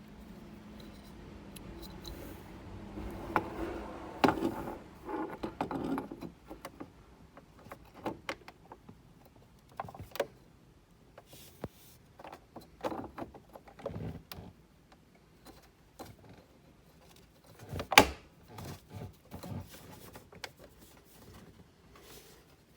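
Metal clinks, taps and rattles of an aftermarket steering-wheel hub adapter being worked onto the steering column shaft, with a cluster of handling noise early on and one loud sharp knock about three-quarters of the way through.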